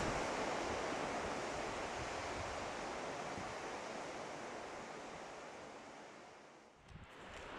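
Steady rushing outdoor noise of wind and waves, slowly fading out until it almost vanishes near the end.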